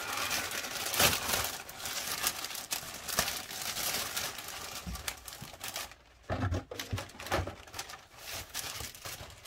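Clear plastic bag around a plastic model kit's sprues crinkling and rustling as hands open it and work the sprues free. It goes quieter about six seconds in, with a few soft knocks.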